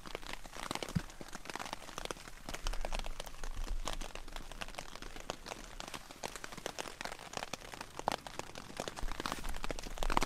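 Dry grass tinder bundle crackling and crinkling as it is squeezed, handled and blown on to nurse a smouldering char-cloth ember from a flint-and-steel spark toward flame.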